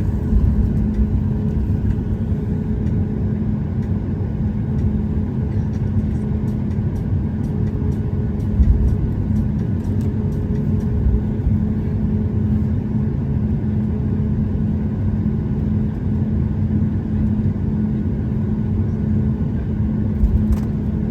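Steady cabin noise of a Boeing 737-8 MAX airliner: its CFM LEAP-1B jet engines and the airflow make an even rumble with a constant low hum, heard from inside the passenger cabin.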